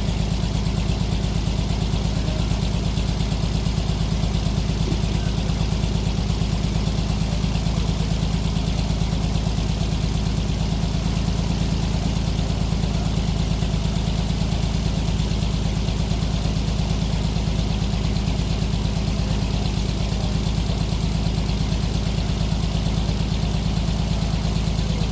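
Sawmill engine running steadily at an even speed, a constant low rumble with no change in load.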